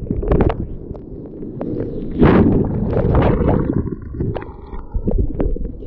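Whitewater rushing and splashing over a camera held low on a bodyboard riding through broken surf, with water slapping the microphone in uneven surges, the loudest about two seconds in.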